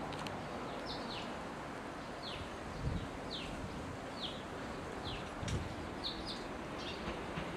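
A small bird chirping repeatedly, short downward-sweeping notes about once a second, over a steady low rumble.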